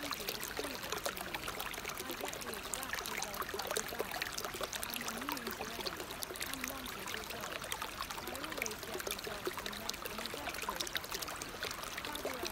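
Steady running water, like a stream, with a faint voice speaking underneath it: the quiet spoken affirmations of a subliminal track.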